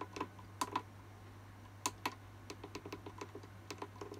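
Small plastic clicks from the monitor's joystick menu button being pressed and nudged, a dozen or so at an uneven pace and more frequent in the second half, over a faint low steady hum.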